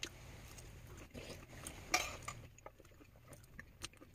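Plastic cutlery clicking and scraping against a takeout food container during eating, quiet, with one sharper click about two seconds in.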